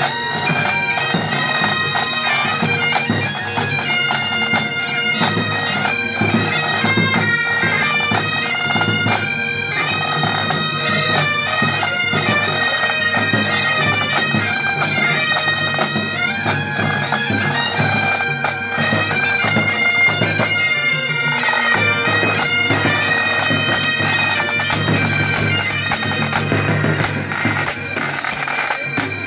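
Breton pipe band (bagad) playing a tune on the march: bagpipes over their steady drone, with bombardes and a snare drum.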